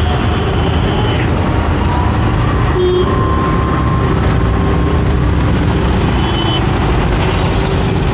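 Steady road and traffic noise heard while riding a motorcycle through city traffic: engine, wind and surrounding vehicles, with a few faint held tones from other vehicles.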